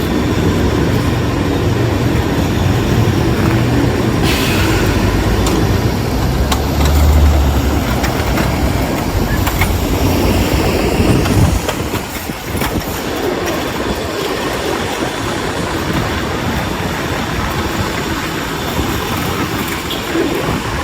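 A heavy vehicle rumbling past, loud and low, cutting off suddenly about halfway through and leaving a steady background hum.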